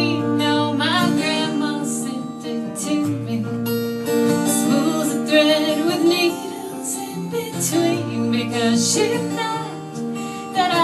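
Live acoustic music: a strummed acoustic guitar playing an instrumental passage between sung lines, with sustained notes changing every second or so.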